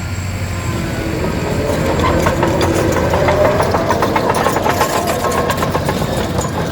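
Caterpillar 973D track loader's diesel engine working, revving up about two seconds in and holding the higher speed, with many sharp knocks and rattles over it.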